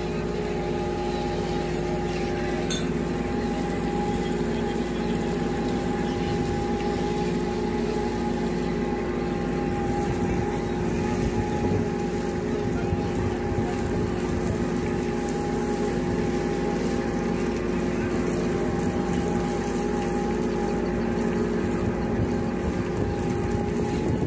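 A fishing boat's engine and deck machinery running with a steady hum of constant pitch and no change in level.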